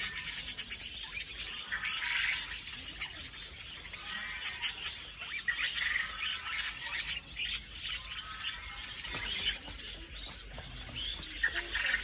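A flock of budgerigars chattering, many short chirps and warbling calls overlapping.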